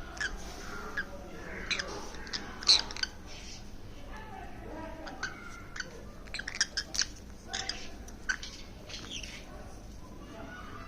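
Green-cheeked conure giving scattered short, sharp chirps and squawks, with a quick cluster of them a little past the middle.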